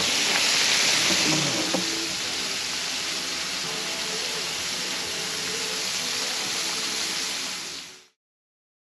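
Battered perch fillets frying in hot oil in a pan on a propane camp stove: a steady sizzle that cuts off about eight seconds in.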